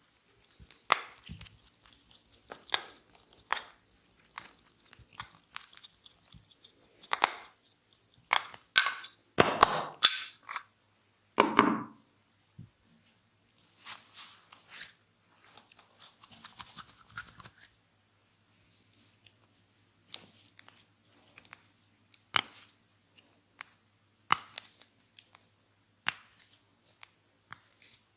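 Hands working on a person during a massage: an irregular run of sharp slaps, pats and pops with scratchy rubbing between them. The loudest hits come in a cluster about nine to twelve seconds in.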